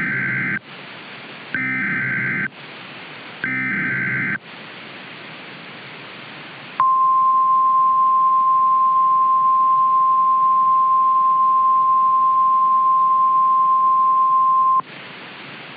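Three short bursts of NOAA Weather Radio SAME digital header data about a second apart, then the steady 1050 Hz weather radio alert tone held for about eight seconds, all over radio hiss. This is the start of an emergency alert broadcast.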